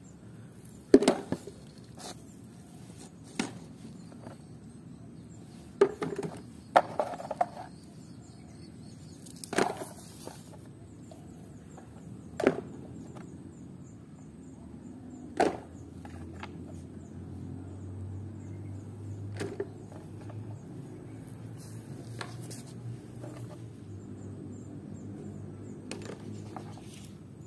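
Mud-covered plastic toy figures being picked up and set down one at a time in a tray. About a dozen scattered knocks and clacks of hard plastic come at irregular intervals, the loudest about a second in.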